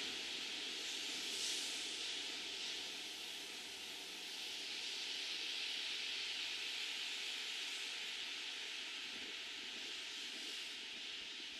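A steady, even hiss with no tone or rhythm in it, swelling and easing slightly in loudness.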